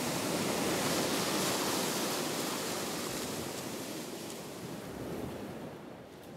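Ocean surf washing onto a sandy beach: a steady rush of breaking waves and foam, fading away over the last couple of seconds.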